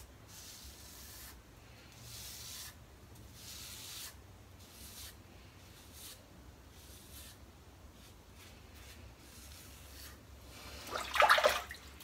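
Gem Micromatic Bullet Point single-edge safety razor scraping through thick lather on a shaved scalp: a few soft rasping strokes, each about a second long, mostly in the first four seconds. Near the end comes a louder, brief burst of noise.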